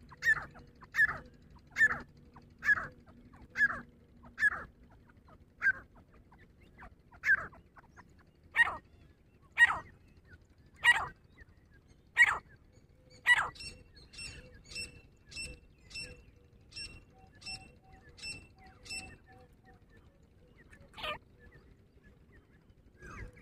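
Grey francolin calling: a run of loud, sharp, ringing notes about one a second, spacing out slightly as it goes. Past the middle a quicker, fainter series of thin, higher notes follows, and one more loud note comes near the end.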